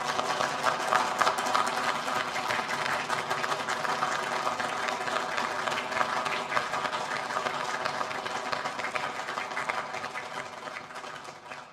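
Crowd cheering and applauding, a dense patter of clapping that slowly fades out near the end.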